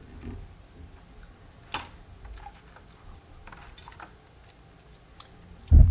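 A few faint, isolated clicks over quiet room tone, with a short low thump just before the end.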